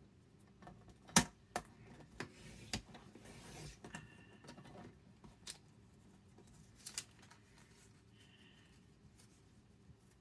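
Paper trimmer being worked: sharp clicks and taps as the paper is set and the blade carriage pressed down, the loudest about a second in, then the blade sliding through the paper with a rasping swipe about two to four seconds in. A few lighter clicks follow near the middle.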